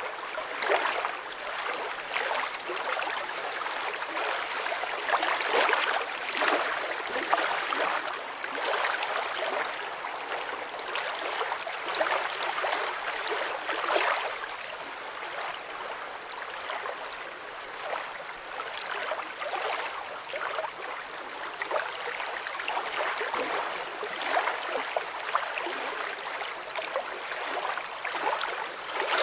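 Running water, a stream or lake edge, flowing steadily, full of small gurgles and splashes, with little deep rumble.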